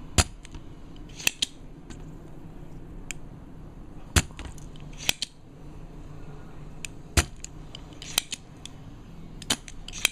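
Spring-loaded desoldering pump (solder sucker) being cocked and fired to draw molten solder off a board, giving sharp snaps and clicks a second or few apart, the loudest three spaced about three seconds apart.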